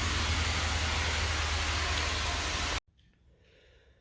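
Steady hiss over a low hum, which cuts off abruptly about three seconds in, leaving near silence.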